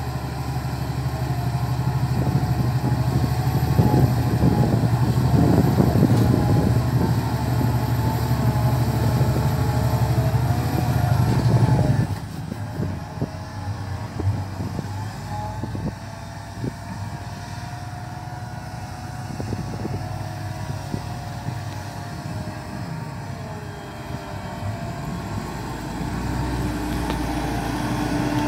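Fendt 1050 Vario tractor's six-cylinder diesel engine running under load while pulling a cultivator through stubble. The sound drops abruptly about twelve seconds in and grows louder again near the end as the tractor comes closer.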